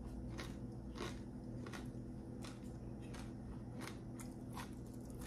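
Close-miked mouth chewing crispy fried chicken: soft crunches about every two-thirds of a second, over a steady low hum.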